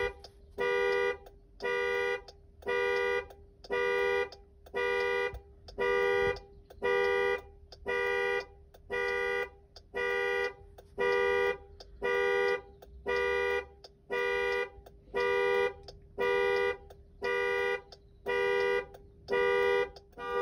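Car horn, likely the 2019 Jeep Grand Cherokee's own dual-tone horn, honking in a steady on-off pattern, about once a second with each honk lasting about half a second. This is the repeating pattern of the vehicle's anti-theft alarm going off.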